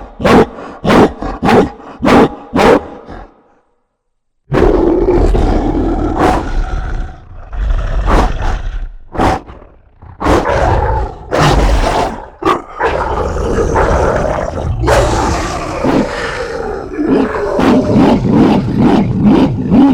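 Monster-dog (Cerberus) sound effect: a quick run of short, loud barks, a second of silence, then long roars and growls with a deep rumble, broken by brief pauses.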